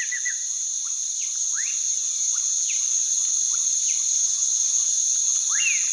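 Steady, high-pitched insect chorus of a wetland night ambience, with short sweeping chirps scattered through it.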